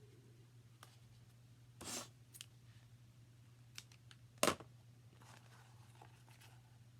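Hands working a roll of double-sided tape and paper: a short rasp about two seconds in and a sharp click a little past halfway, over a steady low hum.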